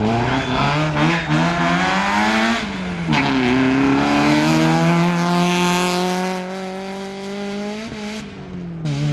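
Rally car engine running hard under acceleration, its pitch climbing, dropping once about three seconds in at a gearshift, then climbing slowly again before falling away near the end as the driver lifts off.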